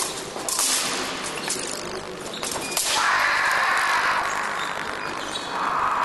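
Épée blades clashing and fencers' feet striking the piste during an attack that scores a touch. From about three seconds in comes a long, loud, wavering sound, which returns near the end.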